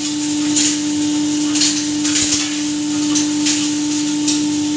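Impact pulverizer (hammer mill) grinding dried turmeric, running with a steady hum and rush of air, with irregular sharp crackles as pieces are shattered inside.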